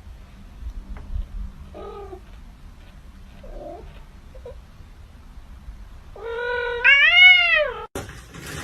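Domestic cat giving a few faint short mews, then one long, loud yowl near the end that rises and then falls in pitch.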